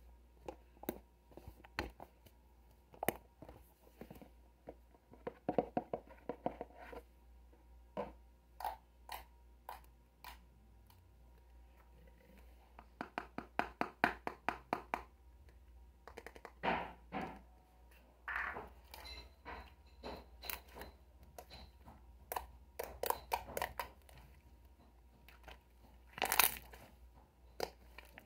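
Sharp crackles and crunches from something being squeezed or handled close to the microphone. They come in quick clusters of small clicks, with a louder crunch near the end.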